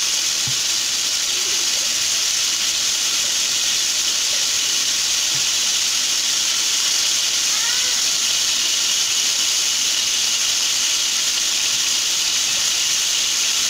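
Beef fillet steak sizzling steadily as it fries in a pan of hot oil and margarine.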